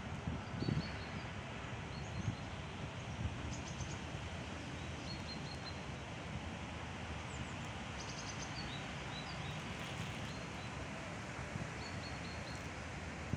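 Small birds chirping in short high-pitched series several times, over a steady outdoor background noise.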